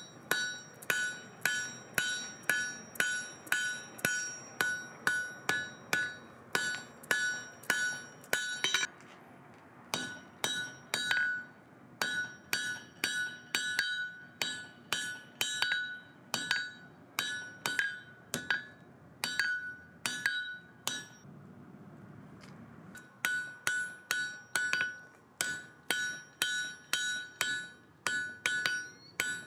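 Hand hammer striking a glowing wrought-iron bar on an anvil, about two to three blows a second, each blow leaving the anvil ringing. The hammering stops briefly about nine seconds in and again for a couple of seconds around twenty-one seconds.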